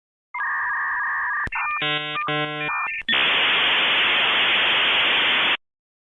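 Dial-up modem connecting. First a pair of steady tones, then a stretch of stacked, beeping handshake tones with short breaks, then a steady hiss of static that cuts off suddenly.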